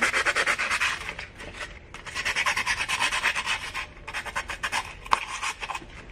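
Fine sandpaper rubbed quickly back and forth by hand over the chipped rim of a drinking glass, a fast scratchy rasp in spells of rapid strokes that grows fainter near the end. A single sharp tick sounds about five seconds in.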